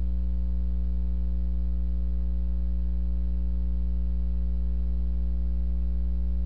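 Steady electrical mains hum: a loud low drone with a row of fainter higher tones above it, unchanging throughout.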